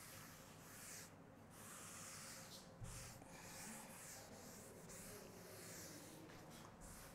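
Faint, repeated rubbing strokes of a duster wiping chalk off a chalkboard.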